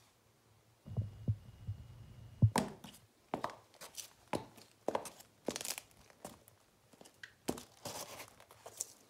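Footsteps of high-heeled leather boots on a tiled floor littered with flaking plaster debris, a steady series of sharp steps about one and a half a second, starting about two and a half seconds in. Before the steps there is a brief low rumble with a few knocks.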